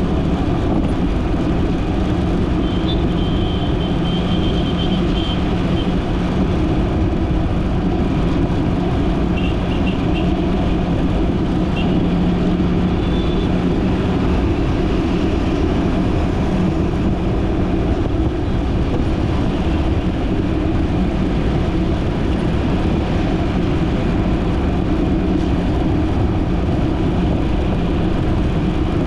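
Steady rumble of a car driving on a city road, its engine and tyre noise running evenly, with faint thin high-pitched tones a few seconds in and again partway through.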